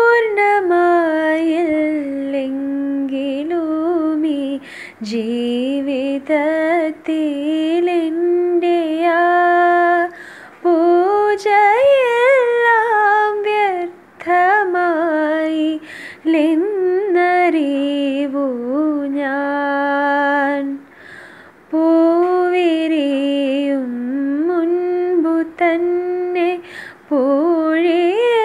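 A woman singing solo and unaccompanied, close into an earphone's inline microphone: a slow melody with many ornamental bends, sung in phrases of a few seconds broken by short pauses for breath.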